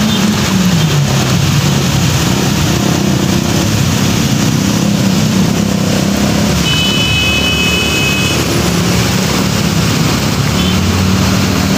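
Heavy rain and floodwater rushing over a flooded street, with motorbike and car engines running and revving as they drive through the water. About seven seconds in, a high steady tone sounds for about a second and a half.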